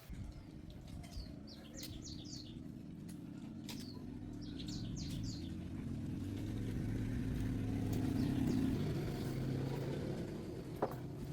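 A vehicle engine running, growing steadily louder to a peak about eight to nine seconds in, then easing off, with birds chirping in short sweeping calls during the first half and a sharp click near the end.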